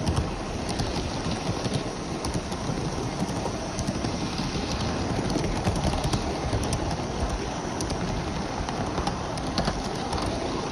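Gauge 1 model train running on its track, heard from a wagon just behind the tender of an Aster 9F live-steam locomotive: a steady rolling rumble with a dense patter of small irregular clicks from the wheels on the rails.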